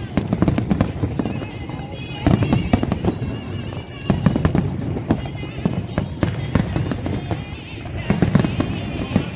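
Fireworks display: irregular bangs and dense crackling, with music playing alongside.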